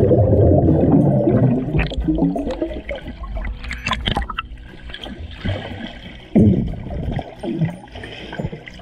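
Pool water churning and bubbling, heard muffled through a submerged camera. It is loudest for the first two seconds, with two shorter surges about six and a half and seven and a half seconds in.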